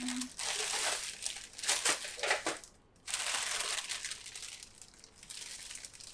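Baking paper crinkling and rustling as it is handled and peeled back off a sheet of rolled pie dough, with a few sharper crackles about two seconds in.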